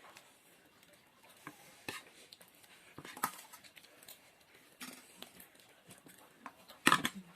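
Eating sounds: scattered light clicks and clinks of cutlery and dishes, with a louder clatter near the end.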